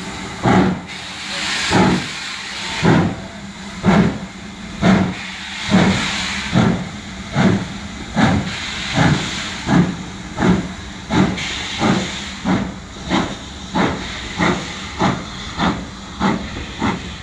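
GWR 4-6-0 steam locomotive pulling away from a stand: sharp chimney exhaust beats, about a second apart at first and coming faster and faster as the train gathers speed, over a steady hiss of escaping steam.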